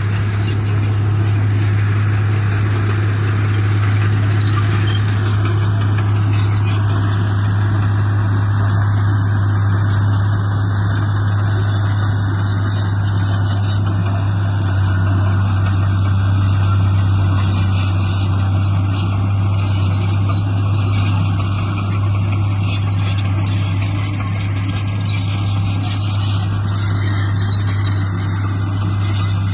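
Heavy diesel engine of earthmoving equipment running steadily, with a strong low drone that holds at one pitch.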